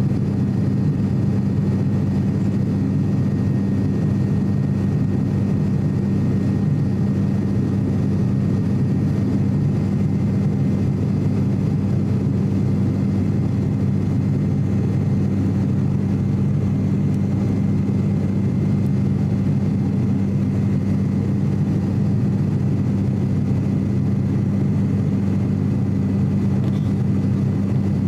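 Cabin noise of an ATR 42-600 twin turboprop in flight, heard beside the propeller: a steady, even drone with a strong low hum and a faint thin whine above it.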